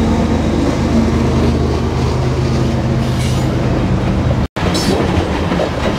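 A GE diesel locomotive passing close by, its engine running with a steady low drone. About four and a half seconds in, after a brief break, the sound changes to coal hopper cars rolling past, wheels rumbling and clicking over the rails.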